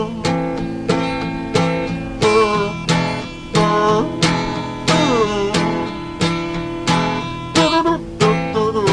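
Acoustic guitar strummed in a steady rhythm, a stroke about every half second or so, with a higher melody line gliding in pitch over the chords.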